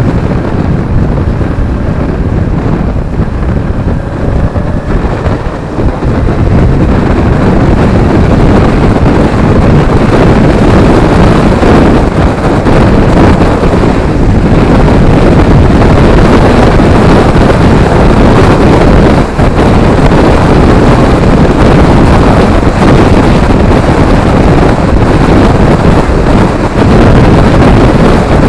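Heavy wind buffeting on a camera microphone on a moving motorcycle, with the bike's engine faintly heard under it in the first few seconds. The wind noise grows louder about six seconds in and stays loud.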